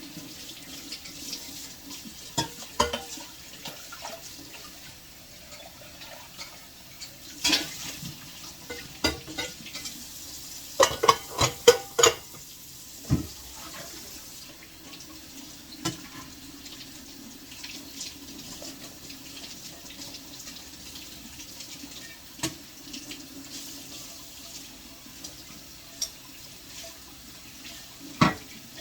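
Tap water running steadily into a sink while dishes and cutlery clink and clatter now and then, with a quick run of clinks about eleven seconds in.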